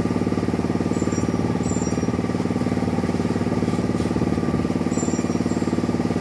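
A small engine running steadily at a constant speed, with a fast, even throb, and a few faint short high squeaks over it.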